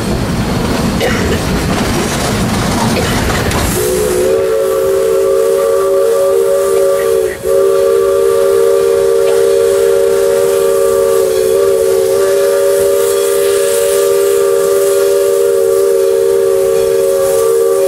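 Narrow-gauge steam locomotive's chime whistle blowing one long blast of about fourteen seconds, a chord of three close notes with a brief dip about halfway through. Before it starts, the train's running rumble.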